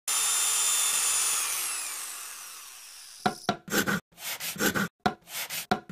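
Woodworking power tool running with a steady whine, then spinning down, its pitch falling as it fades over about a second and a half. In the second half comes a quick, uneven run of short sharp knocks.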